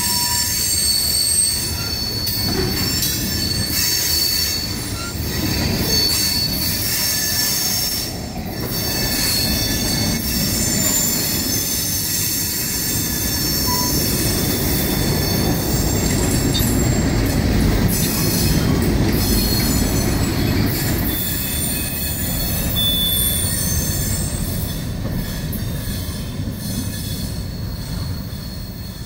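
Mixed freight train rolling past, its wheels squealing on the rails in several steady high-pitched tones over a continuous low rumble. The sound eases slightly near the end.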